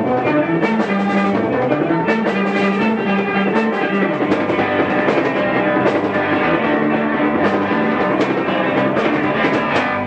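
Live rock band playing loud and dense: drum kit, bass and electric guitar together, with a steady driving beat.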